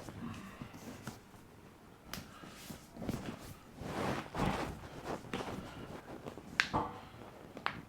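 Two sharp joint cracks about a second apart near the end, from a chiropractic adjustment, after soft rustling as the body is moved.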